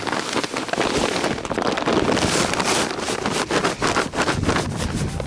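A bag of livestock feed being poured into a 55-gallon drum: a steady rush of feed with many fine clicks as it falls in.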